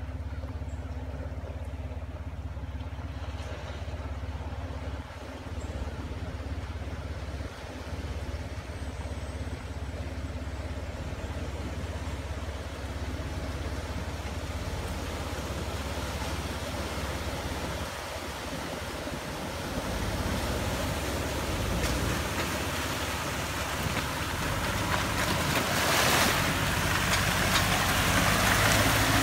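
Jeep Wrangler engine running steadily as it drives through a shallow creek crossing, growing louder as it comes closer. The rush and splash of water thrown up by the tyres builds and is loudest near the end.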